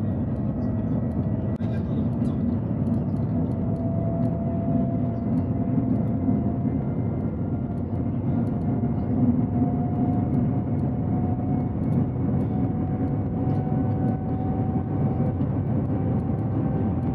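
Shanghai Maglev train at speed, heard from inside the passenger cabin: a steady low travel noise with a faint whine that slowly rises in pitch.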